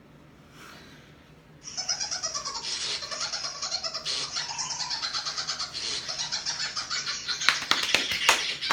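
Novelty 'drunk phone' ringtone starting to play about two seconds in: loud, high, wavering squeaky sounds with a fast flutter, with sharper squeals near the end.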